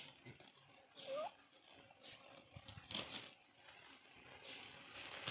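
Feathers being pulled by hand from a country chicken carcass: short rustling, tearing strokes every second or so. A short rising bird call sounds about a second in.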